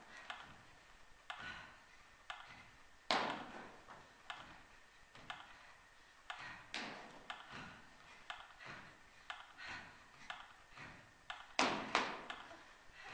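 Footfalls and body impacts of a performer running across a stage floor and landing on gym mats: irregular light taps, with two louder thuds about three seconds in and near the end.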